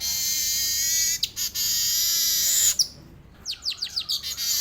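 Male manyar weaver bird singing a long buzzy, wheezy roll. It breaks off about three seconds in, then gives a quick run of sharp separate notes before the buzzing starts again.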